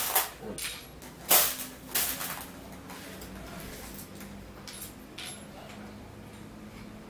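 Sharp clicks and clatter of small metal furniture fittings handled in a metal tray and set on a drawer panel. There are several in the first two seconds or so, then a couple of lighter clicks about five seconds in.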